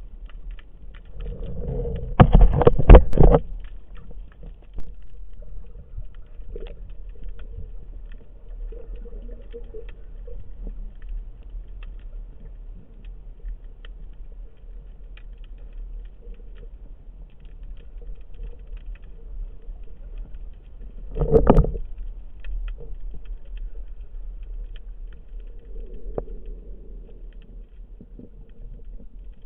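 Underwater ambience picked up through a waterproof camera housing: a steady low rumble with a faint continuous crackle, broken by a loud rushing burst about two seconds in and a shorter one about two-thirds of the way through.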